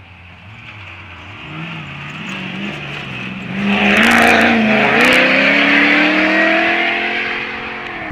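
Open-topped 4x4 off-road competition vehicle driving past at speed, its engine revving as it approaches. It is loudest about four seconds in, with the rush of tyres on dirt, then the engine note drops in pitch and fades as it drives away.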